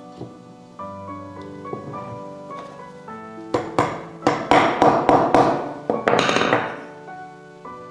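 Hammer blows on wood, a quick run of about eight sharp knocks around the middle, over soft background piano music.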